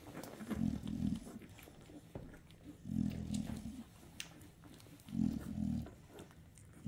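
Low, rumbling grunts from a nano exotic American bully dog, three of them about two seconds apart, each lasting under a second.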